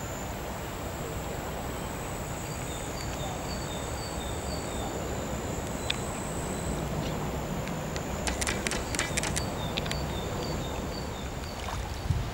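Outdoor riverside ambience: a steady hiss with a constant high-pitched insect drone. Over it come two runs of short high chirps, about three a second, and a quick flurry of clicks about eight seconds in.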